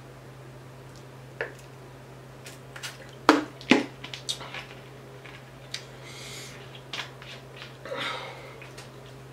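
Close-miked eating and handling noises at a table of fried fish: scattered sharp clicks and crackles, the loudest a pair about three seconds in, then a short hiss and a rustle near the end. A steady low electrical hum runs underneath.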